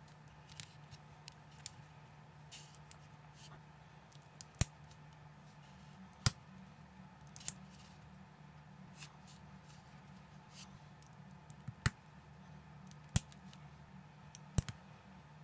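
Plastic building bricks clicking and snapping as they are pressed together and handled, about eight sharp clicks at irregular intervals with fainter ticks between, over a low steady hum.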